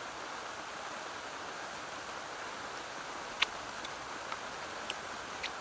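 Steady rain hiss, with a few short sharp ticks in the second half.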